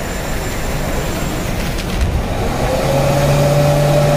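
Loud, steady din of a crowded exhibition hall with sound-system demos running. About three seconds in, a held low note sounds alongside it.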